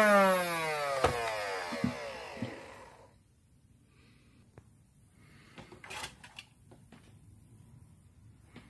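Nerf blaster's electric flywheel motors spinning down, their whine falling steadily in pitch and fading out within about three seconds, with a few sharp clicks as they slow. The motors are running on an IMR cell plus a homemade foil-and-dart dummy cell. Later, a few faint handling knocks.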